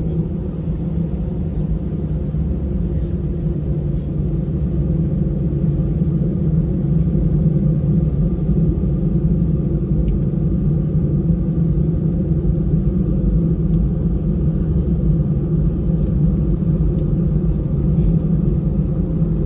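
Steady, unchanging low rumble of a moving vehicle's cabin, with a constant hum underneath.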